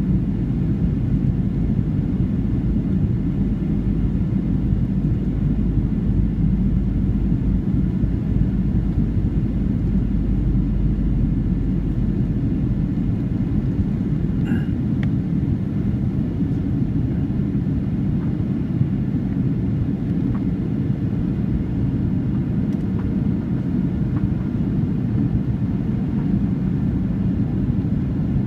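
Steady cabin noise of a Boeing 737-700 descending toward landing, heard from a rear window seat. The CFM56-7B engines and the airflow make a deep, even rumble, with a faint brief tick about halfway through.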